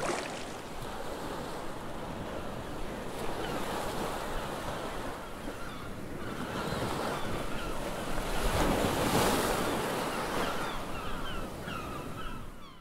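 Ocean surf ambience: waves washing steadily with wind, swelling about two thirds of the way through, with a few short faint chirps near the end before it cuts off suddenly.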